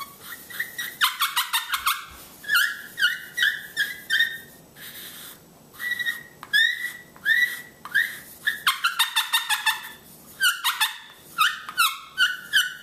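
Homemade turtle-shell turkey pot call with a slate surface, played with a sycamore stick as the striker: several runs of quick, high-pitched, squeaky yelps with short pauses between them.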